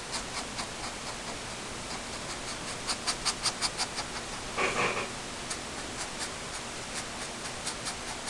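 Felt-tip marker scratching across paper in quick short strokes as it fills in a solid black area, a run of about six strokes a second around three seconds in and sparser strokes later, over a steady hiss. A brief breathy sniff comes a little past the middle.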